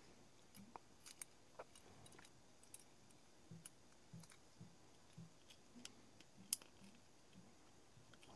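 Faint, scattered clicks and small taps of plastic parts being handled and pressed into a black plastic 12-volt lighter-socket splitter housing, with one sharper click about six and a half seconds in.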